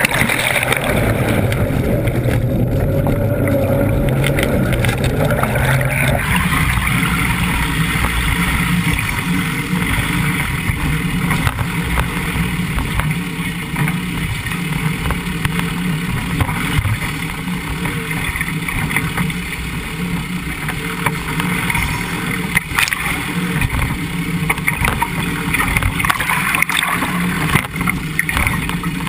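Land Rover Defender 90 fording a river: water rushing and splashing against a camera mounted low on the vehicle, over a steady low rumble. For the first several seconds the camera is under water and the sound is duller; about six seconds in it clears into open splashing.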